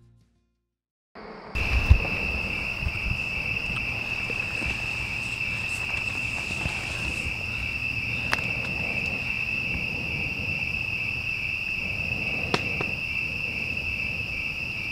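Steady, high-pitched chorus of night insects, starting after about a second of silence and running on unbroken. Low handling rumble lies under it, with two soft clicks in the second half.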